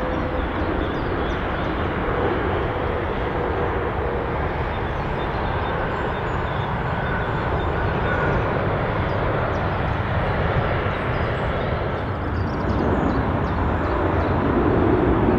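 Steady jet airliner engine noise during landing and rollout, a broad rushing rumble. It changes a little about twelve seconds in and grows slightly louder toward the end.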